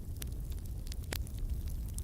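Wood fire burning: a steady low rumble with scattered crackles and pops, and one louder crack a little past the middle.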